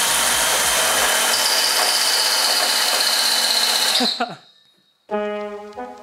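60-volt electric chainsaw motor running at full speed, driving a chain sprocket tacked onto its own sprocket, with a steady high whine. About four seconds in it cuts off and winds down quickly. About a second later, music with brass comes in.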